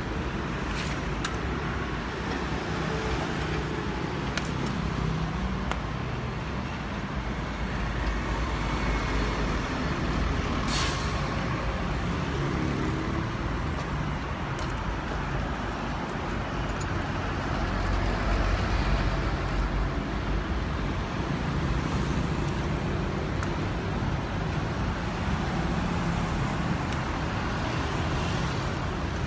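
Steady engine rumble, with a dozen or so short sharp clicks scattered through it.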